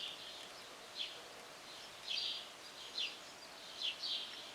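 A small bird chirping repeatedly, short high downward chirps about once a second, faint over a steady low hum.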